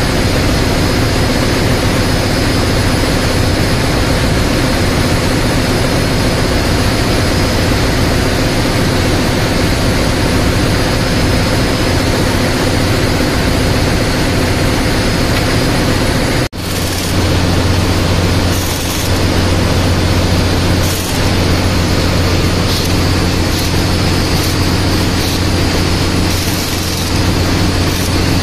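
Loud, steady drone of a ship's engine room machinery. After a break about sixteen seconds in it turns to a deeper hum, with several short spells of hiss that fit a pneumatic impact wrench running down the strainer cover bolts.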